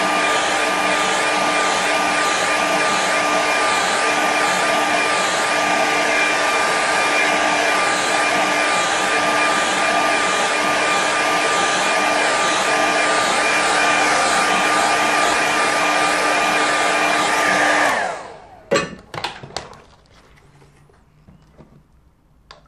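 Hand-held hair dryer blowing on wet watercolour paint, a steady rush of air with a whine over it. About eighteen seconds in it is switched off and winds down, followed by a few light knocks.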